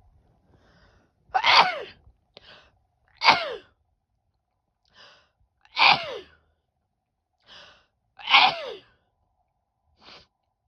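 A woman sneezing four times in a row, each sneeze loud and short with a voiced cry that drops in pitch, and shorter, quieter breaths between them.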